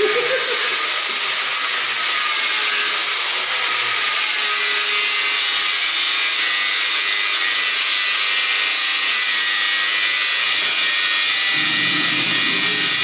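A power tool running steadily and loud, without a break.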